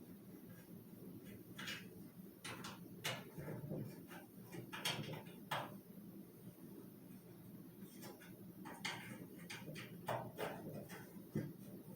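Irregular light clicks and knocks of box-fan parts being handled and worked on by hand during disassembly, over a steady low hum.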